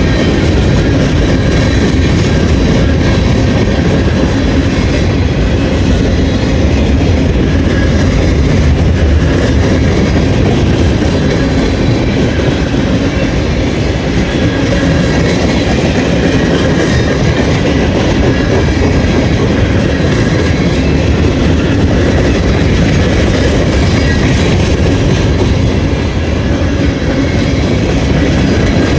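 Freight train cars rolling slowly past, a loud, steady rumble of wheels on the rails with a clickety-clack over the rail joints.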